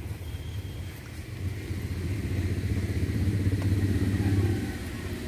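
An engine running steadily, growing louder about two seconds in and easing off near the end, like a vehicle passing.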